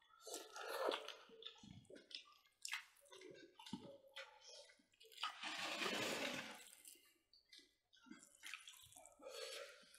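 Close-up eating sounds: wet chewing and fingers mixing rice and pork ribs on plates, in irregular short bursts, with a longer, louder stretch about five seconds in.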